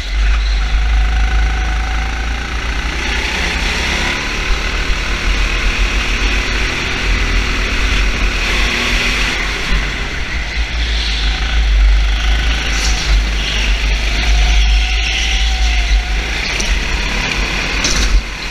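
Motor vehicle engines running, with a steady deep rumble underneath and a few faint engine tones rising and falling.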